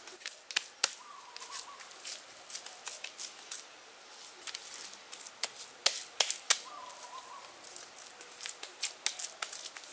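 Hands scooping wet clay mud from a woven basket and pressing and patting it onto a frame of woven wooden sticks: a run of irregular sharp clicks and soft wet pats, with a few louder snaps around six seconds in.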